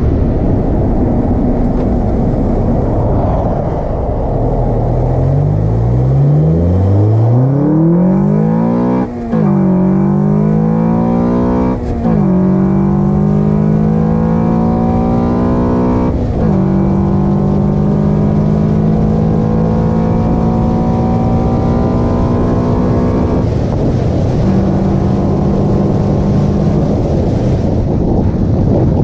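Car engine fitted with an Acuity cold air intake, accelerating through the gears over wind rush. The engine note climbs, and three upshifts each drop the pitch. It then holds a steady cruise and eases to a lower note shortly before the end.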